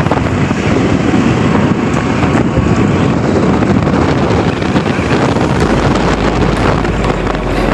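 Wind buffeting the phone's microphone while riding pillion-loaded on a moving two-wheeler, with road and engine noise beneath; the noise is loud and steady throughout.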